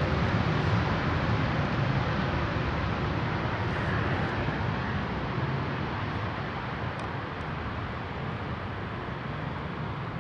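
Twin-engine jet airliner's engines running as the plane rolls away down the runway: a steady rushing rumble that fades gradually.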